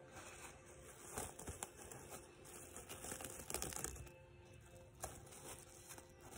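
Cling film crinkling and rustling in the hands as it is pulled and wrapped, with small irregular crackles.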